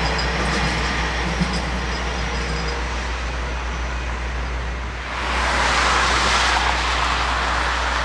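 Light rail trains passing at a road crossing: a steady rumble with faint high wheel tones that fade out after about three seconds. About five seconds in the sound cuts to a road, where a passing truck swells into a rush of tyre noise and then eases.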